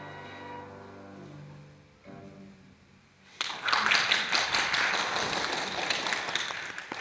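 The last held notes of a classical piece for bowed strings die away, then audience applause breaks out suddenly about three and a half seconds in and stops just before the end.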